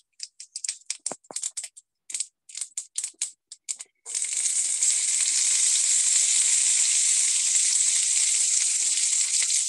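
Whole spices (mustard, cumin and fennel seeds) crackling and popping in hot oil in a skillet, the tempering step for dal. About four seconds in, chopped onion, garlic, ginger and chili slide into the oil and a loud, steady sizzle takes over.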